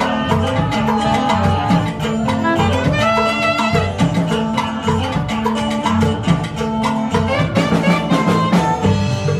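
Live band playing Latin dance music with drum kit, guitars and saxophone over a steady bass line and beat.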